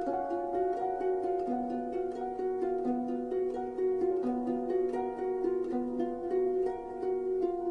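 Instrumental background music with a steady stream of short, quickly repeated notes over sustained tones.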